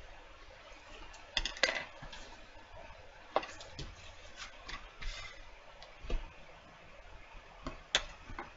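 Paper-cutting scissors snipping and stiff paper crinkling, heard as irregular sharp clicks and crackles as the crown base and its offcuts are cut and handled.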